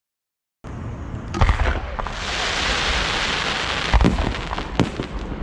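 Aerial fireworks going off: sharp booms about a second in and twice near the end, with a dense crackling hiss of bursting shells in between.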